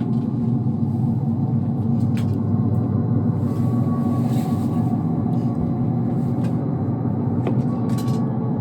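A steady low rumble, with scattered faint clicks and a faint high tone twice.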